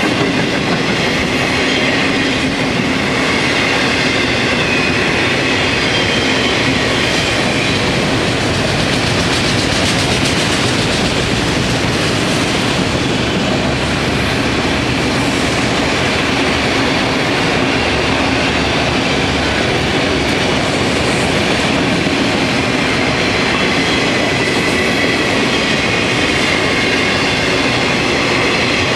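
Freight train of autorack cars rolling past close by at steady speed: a continuous loud rumble and rattle of steel wheels on rail, with clickety-clack over the rail joints.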